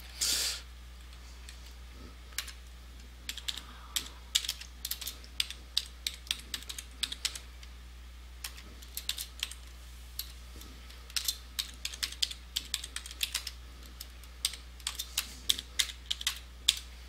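Typing on a brand new computer keyboard: quick key clicks in irregular runs with brief pauses, over a steady low electrical hum.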